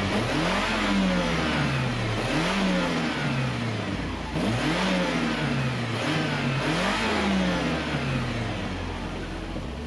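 Turbocharged Mazda Miata four-cylinder engine revved several times in a row, its pitch rising and falling with each blip. The blow-off valve is disconnected, so on each throttle lift the turbo compressor surges and air is forced back out through the intake.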